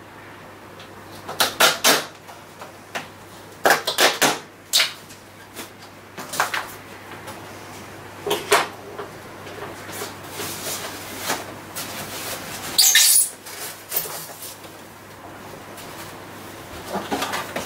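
Unpacking noise from polystyrene foam packing and plastic strapping: short, irregular squeaks, scrapes and rustles as the straps are cut and the foam end blocks are worked off a plastic-wrapped aquarium. The longest and loudest scrape comes about thirteen seconds in.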